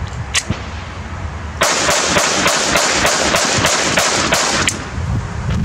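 Glock 44 .22 LR pistol fired in a fast string of about a dozen shots, roughly four a second, starting about a second and a half in and stopping near the end. A couple of sharp clicks from the pistol being handled come before the shots.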